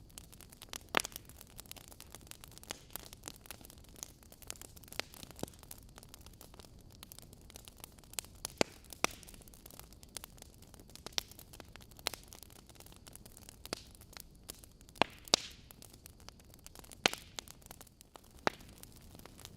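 Wood fire in a fireplace crackling: a soft steady hiss of burning logs with sharp irregular pops and snaps, a dozen or so loud ones scattered through.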